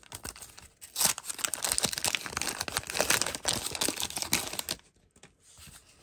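Wax-paper wrapper of a 1989 Donruss baseball card pack being torn open and crinkled by hand: a dense run of crackling and tearing from about a second in, stopping near the end.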